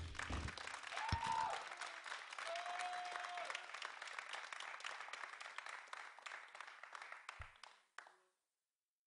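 Audience applauding at the end of a rock concert song, with dense clapping that fades away. Two short high tones sound about a second in and around three seconds in, and the sound cuts off abruptly near the end.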